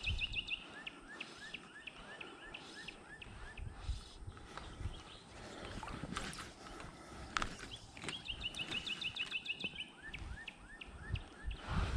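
A songbird singing: a fast, high trill followed by a slower run of lower, down-slurred notes, heard at the start and again about eight seconds in. A few soft knocks and low thumps come in between.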